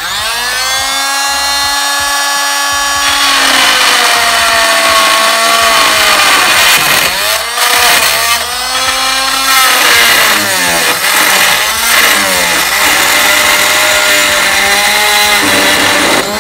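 Oscillating multi-tool running with a loud, high buzz, its pitch sagging and wavering again and again as the blade bites into a copper pipe under load.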